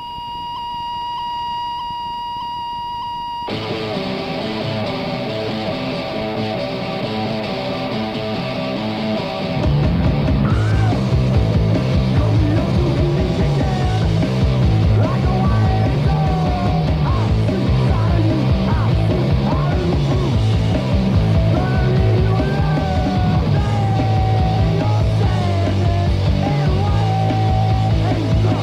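Punk rock song opening on a held high tone for about three seconds, then guitar comes in, and the full band with drums and bass kicks in about ten seconds in, playing steadily from there.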